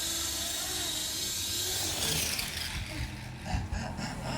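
A 3D printed RC helicopter's electric motor and rotor run steadily with a high whine. About two seconds in, the whine falls in pitch as the rotor spools down, and uneven knocks and thumps follow near the end.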